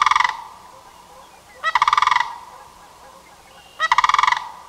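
Sandhill crane calls: three loud, rattling, rolling calls about two seconds apart, each lasting about half a second.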